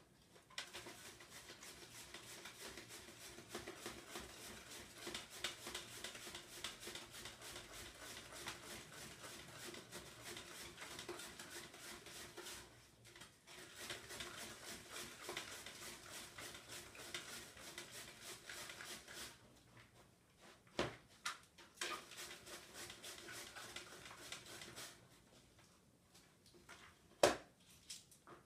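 White cabbage grated by hand on a flat grater into a plastic bowl: long runs of quick, even rasping strokes, broken by a few short pauses. A sharp knock sounds near the end.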